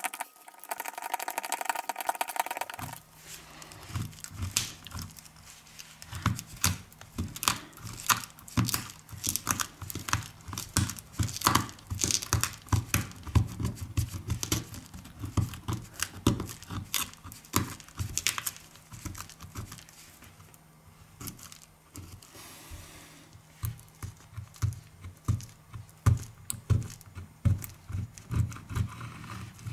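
Irregular small clicks, taps and crinkling of hand tools and phone parts being handled during a phone back-glass repair. A steady tone stops about three seconds in, and a low hum runs under the clicks after that.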